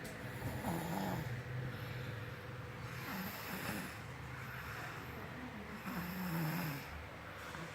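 A small child snoring like an old person: three low, pitched snores about three seconds apart.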